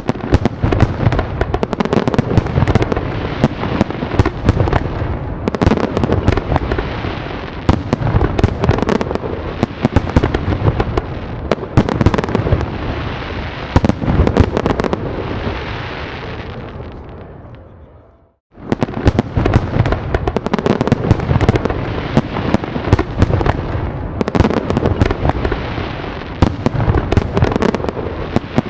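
Fireworks grand finale: a dense barrage of overlapping bangs and crackles over a continuous low rumble. About eighteen seconds in it dies away and breaks off for a moment, then the barrage starts again just as dense.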